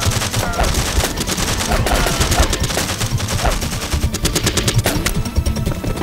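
A gunfight: dense, rapid gunfire with automatic bursts, the shots overlapping with hardly a break, thinning out somewhat near the end.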